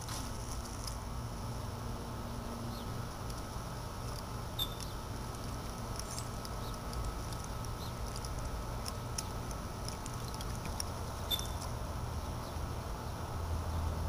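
Water from a small solar-powered fountain's spray jets pattering steadily back into a plastic bucket of water, with scattered light drip ticks.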